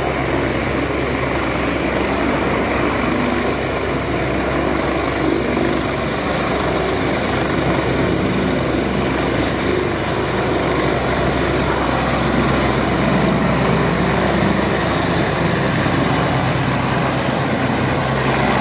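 Helicopter running steadily as it hovers low and then climbs away, its rotors and turbines giving a constant loud noise with a steady high-pitched whine throughout.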